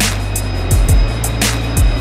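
Music with a steady beat: deep kick drums, a sharp snare-like hit about every second and a half, quick hi-hat ticks, and held bass notes.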